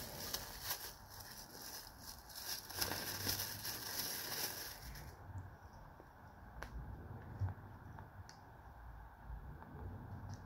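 Thin plastic packaging crinkling and rustling as it is handled, stopping suddenly about five seconds in. After that, a few light clicks and taps from handling a smartphone.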